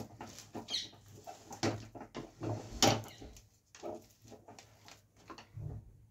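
A spoon stirring and scraping around a pan of thick cooked jaggery mixed with nuts and sesame, with irregular knocks against the pan. The loudest knock comes about three seconds in.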